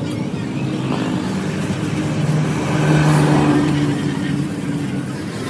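An engine running with a steady droning hum, swelling louder in the middle and easing off again.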